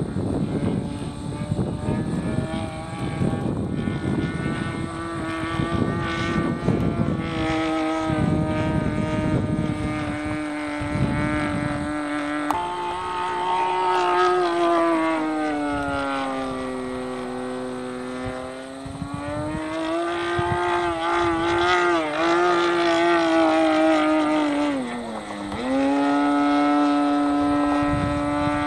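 OS 160 two-stroke glow engine of a model aerobatic airplane running in flight. Its pitch is steady at first, jumps up about twelve seconds in, sags and climbs again, then dips sharply near the end before settling. Wind rumbles on the microphone during the first twelve seconds or so.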